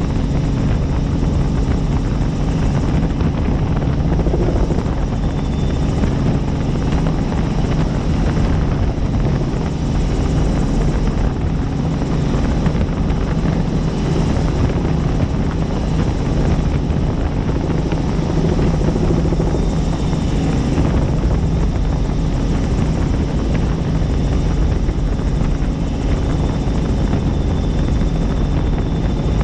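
Helicopter in flight: its engine and rotor blades run steadily with an unchanging low drone.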